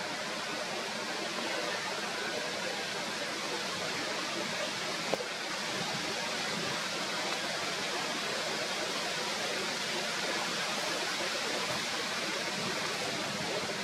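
Steady, even outdoor background hiss with no animal calls, broken by a single faint click about five seconds in.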